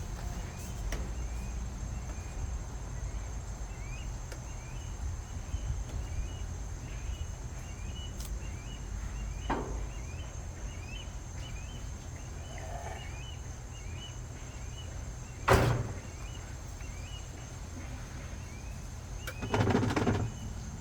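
Steady low hum of a GE top-loading washing machine running. A single loud knock comes about fifteen seconds in and a short rattling burst near the end, over repeated bird chirps.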